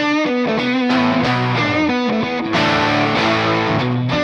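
Intro music led by a distorted electric guitar playing a steady run of chords.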